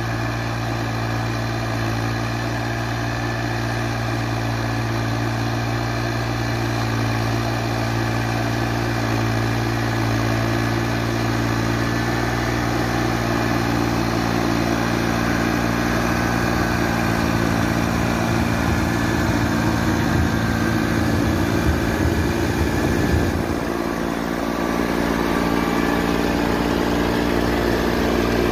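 A 22 hp Sonalika compact tractor's engine running steadily as it drives a rear-mounted rotary tiller through the soil. Its low note changes about three quarters of the way through.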